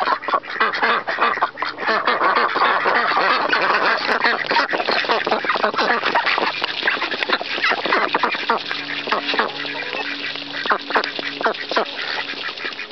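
A flock of white domestic ducks quacking while they feed on scattered grain, with many quick clicks and rattles from their bills working through the feed.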